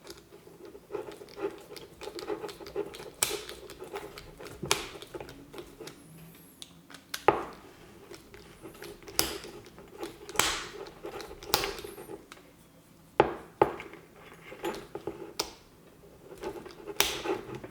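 Scattered clicks and taps of small plug parts, screws and a hand tool being handled while a twist-lock electric plug is wired, over a faint steady hum.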